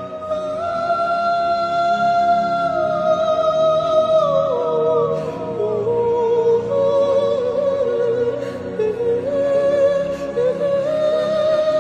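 Slow, sustained worship music: a long-held, wordless melody that moves slowly from note to note over a soft, steady backing.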